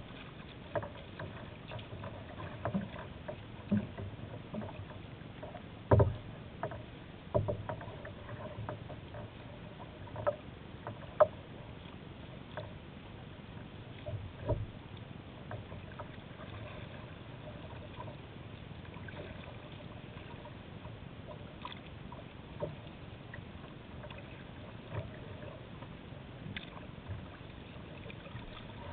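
Kayak paddling on choppy river water: paddle strokes splashing and water slapping against the hull, over a steady wash of water and wind. Irregular sharp knocks and splashes come through, most of them in the first half.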